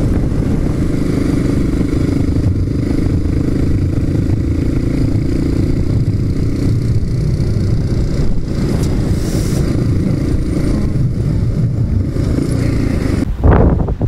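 Motorcycle engine running while riding, mixed with wind rumble on the bike-mounted microphone; a steady engine note fades about halfway through. Near the end there is a loud whoosh of wind noise.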